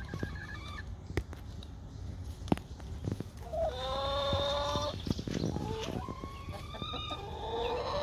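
Backyard hens calling: one long, drawn-out call about three and a half seconds in, then a second, higher drawn-out call from about six seconds in. Earlier there are a couple of sharp taps, one of them the loudest sound.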